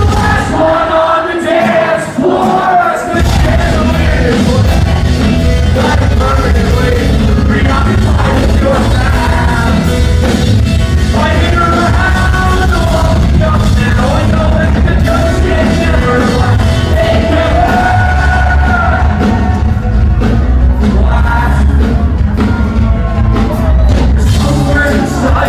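Live rock band playing in a concert hall, heard from the crowd: a singer over guitars, bass and drums. The bass and drums drop out for a couple of seconds near the start, then the full band comes back in.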